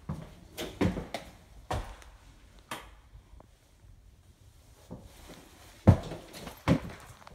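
Footsteps on painted wooden stairs: irregular thuds and knocks, with a quiet stretch in the middle and the loudest thud about six seconds in.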